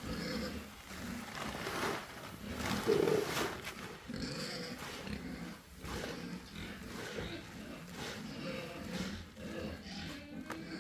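Pigs grunting, with short sharp noises scattered among the grunts.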